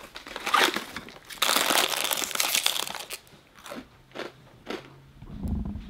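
Crinkling of the foil-lined inner bag from a box of Barnum's Animal Crackers as it is pulled out and opened, followed by several short crunches as the crackers are bitten.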